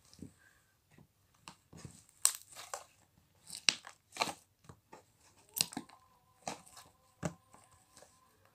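Marshmallow slime being squeezed and stretched by hand, making irregular sticky pops and crackling clicks.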